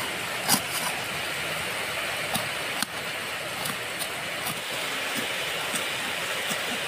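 Large kitchen knife chopping chilies and scallions on a small board: irregular sharp taps of the blade striking the board, over a steady hiss of background noise.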